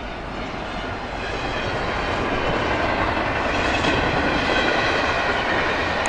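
Canadian Pacific freight train passing: diesel locomotives followed by double-stack container cars rolling by on the rails, a steady dense noise that grows louder over the first few seconds.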